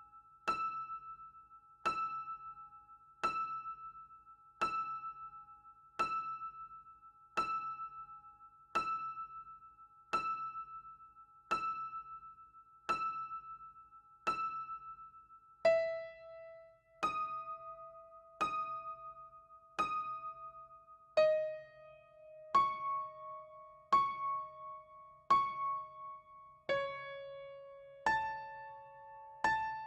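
Trampoline bounced on in a steady rhythm, about one bounce every second and a half. Each landing gives a ringing, piano-like tone that fades. The tone holds one pitch for the first dozen or so bounces, then moves to lower notes.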